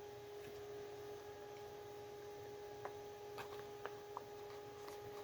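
A faint, steady electrical hum, with a few soft clicks about three to four seconds in.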